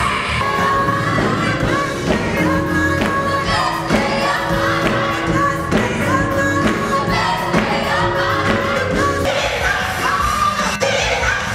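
Live gospel music: singing over band accompaniment, with sustained sung notes over a steady low bass line.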